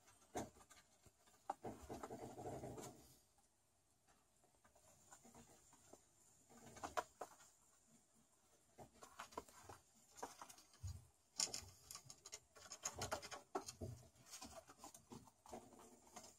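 Kittens' claws scratching on a wooden plank and their paws pattering on a wooden floor as they climb and play. It is faint and comes in scattered scratches, with a longer scratching stretch about two seconds in and a busier patch in the last few seconds.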